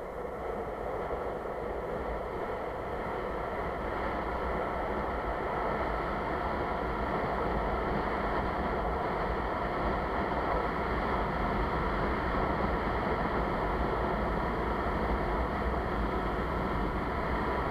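Steady rush of wind on the microphone mixed with the rolling roar of longboard wheels on asphalt during a downhill run, growing louder over the first several seconds.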